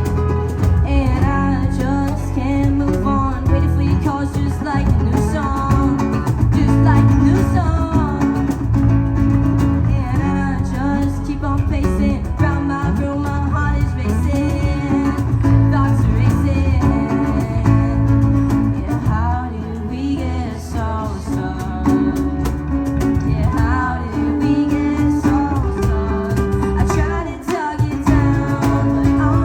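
Live rock band playing a song: a singer over electric guitar and bass.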